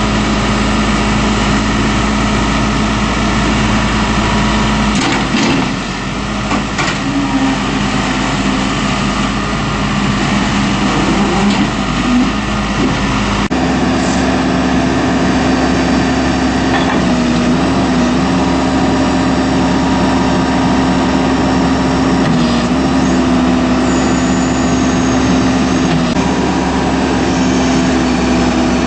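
A 2003 Case 580M backhoe loader's diesel engine running steadily. About halfway through, its note steps up slightly as the engine speed rises, with a few light knocks a little before that.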